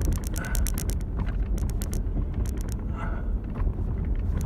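Truck driving slowly across a rough field: a steady low rumble of engine and tyres, broken by repeated bursts of quick, sharp rattling clicks as it goes over the uneven ground.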